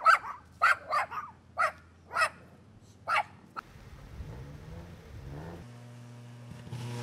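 A dog barking repeatedly, about eight sharp barks in the first three seconds. The barking then stops, and a steady low hum takes over in the last second or so.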